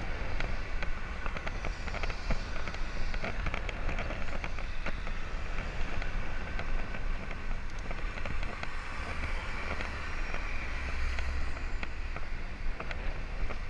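Wind buffeting the microphone of a camera riding on a moving bicycle, over a steady road rumble, with frequent small clicks and rattles as the bike rolls over the road surface.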